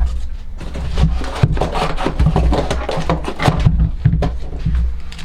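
Rustling, scraping and knocking as a new cordless electric chainsaw is lifted out of its packaging and handled, with repeated low thuds.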